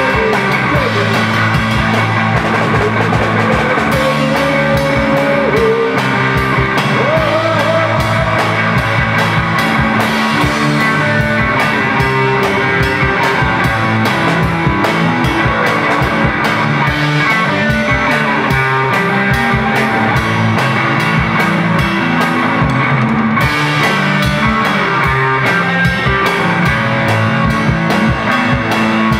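Live rock band playing loudly: a drum kit keeps a steady beat under amplified electric guitars.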